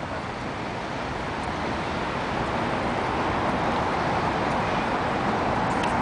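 City street traffic: a steady wash of road noise that grows gradually louder, as a vehicle approaching.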